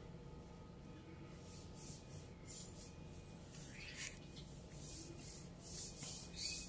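Giant African land snail feeding, its rasping mouthparts scraping at leaves: a run of faint, short scratchy rasps, a couple of them louder, about midway and near the end.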